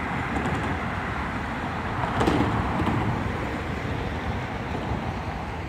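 Road traffic on a city street: a steady rush of car engines and tyres, swelling briefly about two seconds in.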